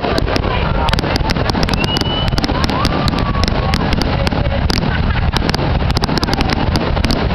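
Fireworks finale barrage: shells bursting and crackling in a rapid, unbroken string, many sharp bangs a second over a continuous rumble.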